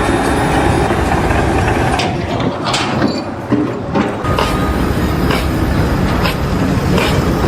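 A loud, steady engine or machinery rumble, dipping briefly in the middle, followed by sharp knocks about once a second.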